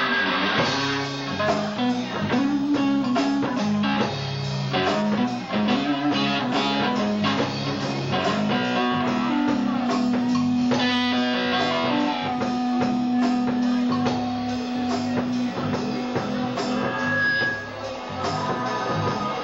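A funk band playing live: electric guitar over a drum kit, with one long held note through the middle.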